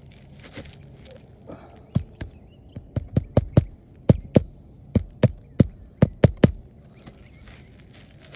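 Hammer driving roofing nails back into a shingle: about fifteen sharp strikes in quick groups, starting about two seconds in and stopping near the middle of the clip.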